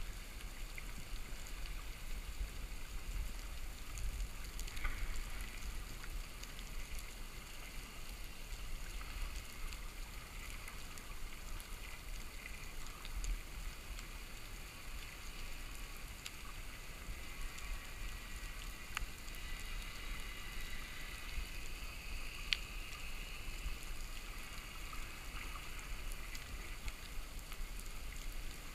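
Underwater ambient noise heard through a submerged camera: a steady low rumble and hiss, with a few faint sharp clicks, the clearest about 22 seconds in.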